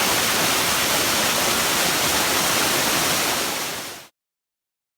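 Waterfall rushing: a steady, even hiss of falling water that fades out and drops to silence about four seconds in.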